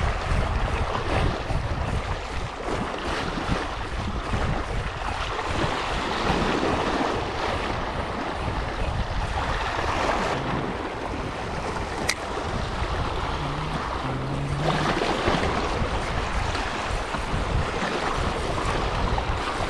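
Sea washing against a rocky shore with wind buffeting the microphone: a steady rushing hiss and low rumble, with one brief sharp tick midway.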